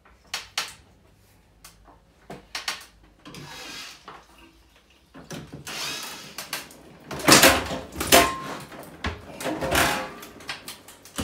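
Clicks, knocks and clattering from dismantling an old Suprima open-vent boiler and lifting it off the wall. Scattered single clicks at first, then denser, louder clattering from about halfway through.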